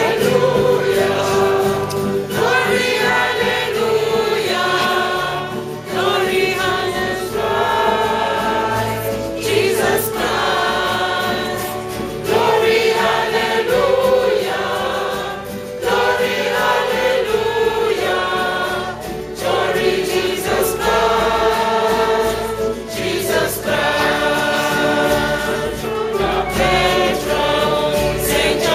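Church choir singing a hymn in sung phrases of a few seconds each, with short breaks between them.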